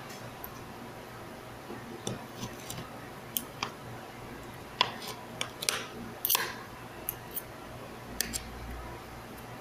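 Metal spoon and fork clinking and scraping against a plate of rice: scattered sharp clicks, the loudest cluster about five to six and a half seconds in, over a steady low hum.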